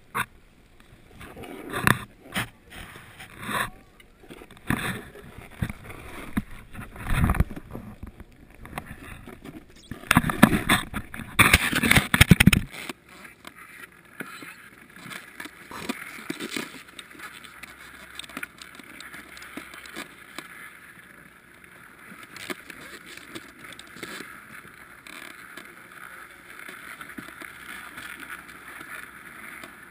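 Snowboard sliding and scraping over snow in loud, uneven bursts, stopping abruptly about thirteen seconds in; after that only a faint steady hiss remains.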